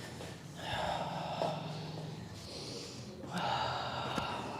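A person taking two long, deep breaths about two and a half seconds apart. These are a patient's breaths on the chiropractor's breathe-in, breathe-out cue during an adjustment.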